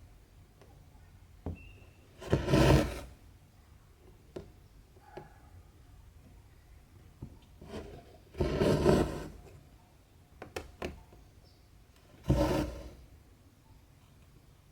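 Cotton embroidery thread drawn through cross-stitch fabric. There are three longer swishes a few seconds apart, with small clicks and taps of the needle and fabric between them.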